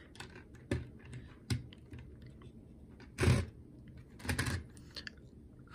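Small plastic clicks and rattles of LEGO minifigures being handled and pressed onto the studs of a LEGO truck's cargo bed, with two louder, brief rattles about three and four and a half seconds in.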